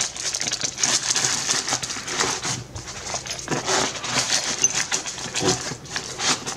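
Paper and nylon fabric rustling and scraping as sheets of paperwork are pushed back into the front pocket of a soft pistol case.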